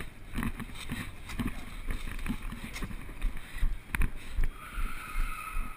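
Soft thumps and rustling, a few a second, with one sharp click about four seconds in: a GoPro action camera being jostled as its wearer moves.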